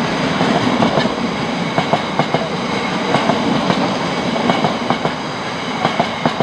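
Tank wagons of a freight train rolling past, the wheels giving sharp clacks over the rail joints, often in close pairs, over a steady rumble. The sound slowly fades as the last wagons pass.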